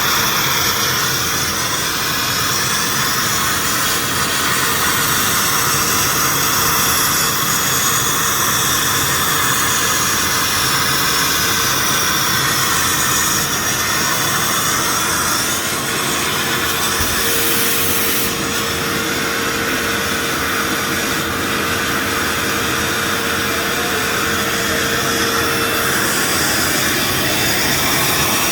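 Akwilon CNC automatic sandblasting machine blasting: a loud, steady hiss of compressed air and abrasive.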